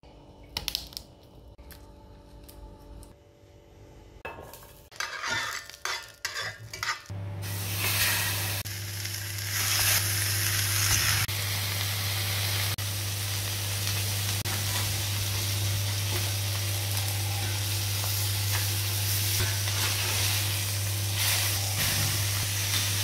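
A few sharp taps and clicks on a kitchen counter, then from about seven seconds in, mini meatloaves and garlic cloves sizzling steadily in a hot cast-iron skillet over a low steady hum.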